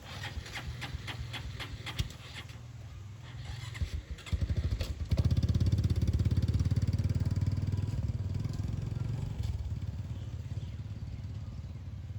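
A small engine catches about four to five seconds in and runs with a fast, even pulsing, loudest just after it starts and then gradually easing off. Before it there is a quick run of light clicks.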